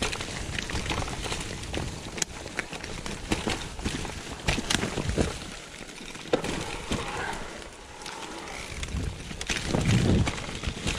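Mountain bike riding downhill on a leaf-covered dirt trail: tyres rolling over dry leaves and soil, with frequent sharp rattles and knocks from the bike over bumps. A louder low rumble swells near the end.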